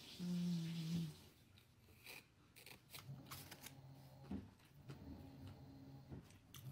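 A person eating a sandwich: a short closed-mouth "mmm" hum of about a second at the start, then chewing and small mouth clicks and rustles as the sandwich is handled. A quieter low hum comes and goes in the second half.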